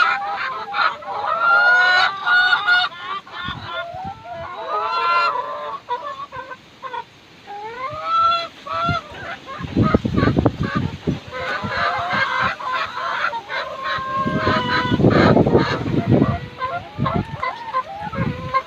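Domestic geese honking over and over, their calls overlapping. Twice, about halfway through and again near the end, low wind rumble buffets the microphone.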